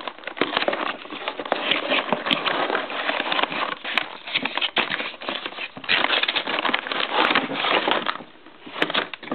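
A cardboard box being opened and its clear plastic packaging tray handled close to the microphone: continuous rustling and crackling of cardboard and plastic, easing off for about a second near the end.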